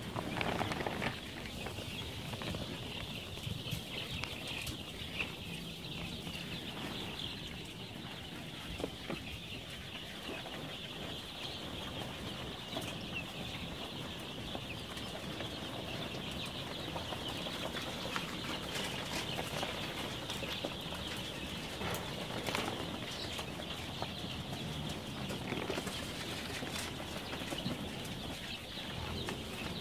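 A large flock of 12-day-old chicks peeping continuously: many overlapping high-pitched peeps merging into a steady chorus.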